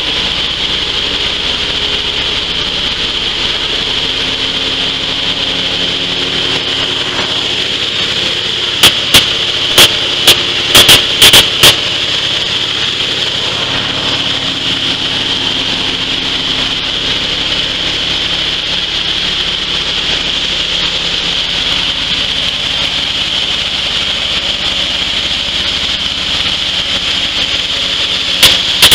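Coffee huller machine running steadily as it husks dry coffee beans, with a constant mechanical hum and hiss. Sharp, very loud clicks come in a cluster about a third of the way in and again at the very end.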